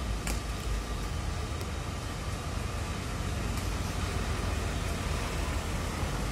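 Coach bus engine running with a steady low rumble and road noise as the bus pulls out and turns past at low speed.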